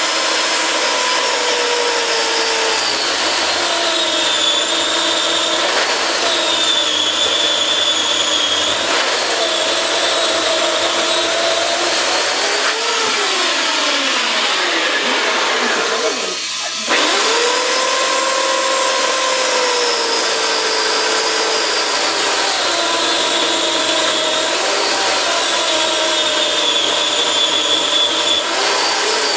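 Corded electric chainsaw running and cutting into a block of log, its motor whine sagging and wavering in pitch as the chain bites. About sixteen seconds in it slows right down, then spins back up and keeps cutting.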